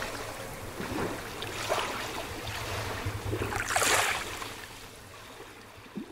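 Small waves washing and lapping against the shore in irregular swells, the biggest about four seconds in.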